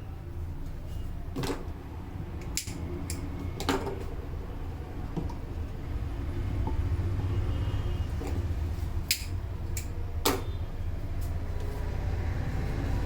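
Hands working during a head massage: several sharp cracks and smacks at uneven intervals, a few together early on and a few more near the end, over a steady low rumble.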